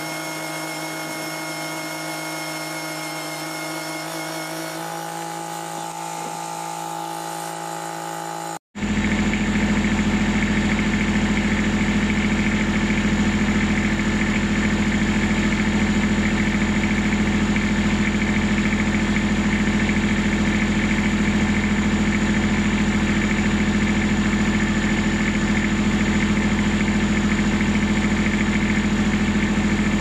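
Tractor engine running steadily at a constant speed. About nine seconds in, the sound drops out for an instant and comes back louder, then runs on as an even hum.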